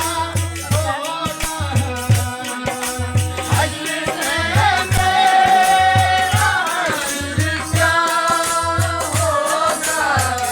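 A song: a voice sings a melody, holding one long note in the middle, over a steady, repeating low drum beat.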